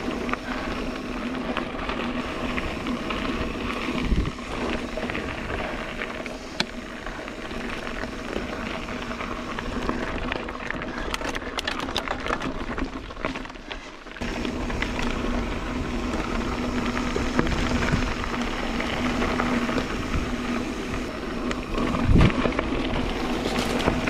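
Mountain bike rolling along dirt singletrack: steady tyre rumble with the bike rattling over the rough ground. A few sharp knocks over bumps, the loudest near the end.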